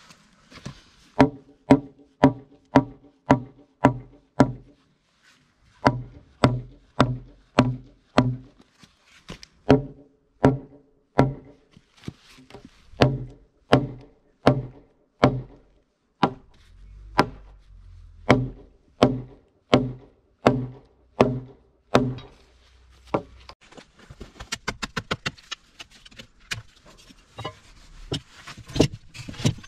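A hammer striking a heavy timber beam over and over, knocking a notched joint of the cabin's base frame down into place. The blows come in runs of about two to three a second, each with a short ringing tone. Near the end the strikes turn faster and closer together.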